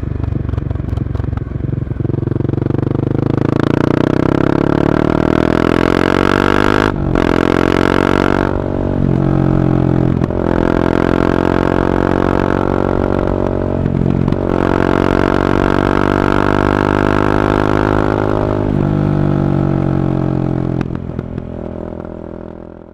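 Honda CB300R's single-cylinder engine through an Akrapovič carbon exhaust, pulling up through the gears: the pitch rises, breaks for a moment at each of several gear changes, then settles. The sound fades out near the end.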